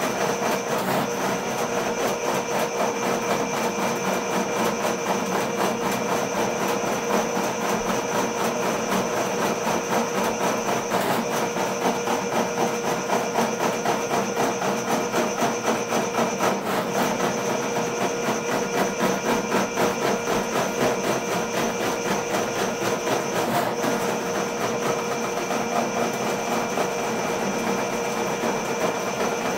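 RIDGID K-50 sectional drain cleaning machine running, its electric motor whirring and the spinning cable rattling steadily as it is fed down a blocked basement floor drain.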